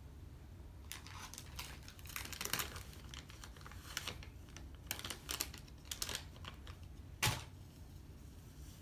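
Rustling and light plastic clicks of makeup packaging being handled, with one sharper click late on.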